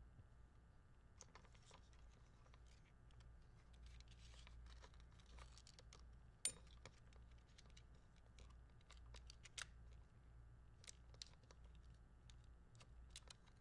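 Quiet handling sounds of 16mm film being threaded by hand through the gate of a Bolex H16 Reflex camera: light rubbing of fingers on film and metal, with scattered small clicks, the sharpest about six and a half seconds in and another near ten seconds.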